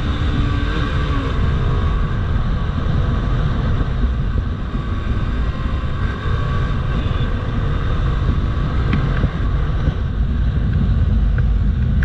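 Bajaj Pulsar RS200 motorcycle riding on the road, its single-cylinder engine running under a heavy rumble of wind on the microphone. The engine note falls about a second in.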